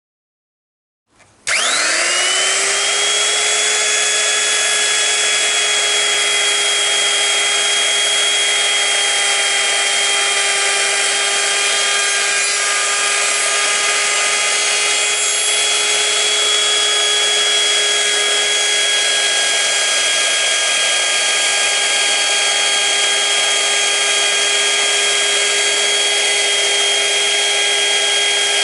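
Electric wood router switching on about a second in, spinning up to full speed, then running with a steady high whine.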